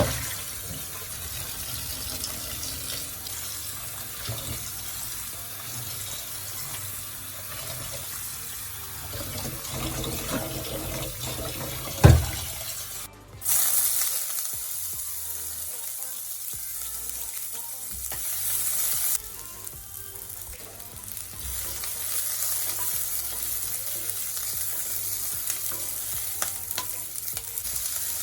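Food sizzling in a hot frying pan as it is stirred. There is one sharp knock about twelve seconds in, then a brief drop-out, after which the sizzling is louder for several seconds.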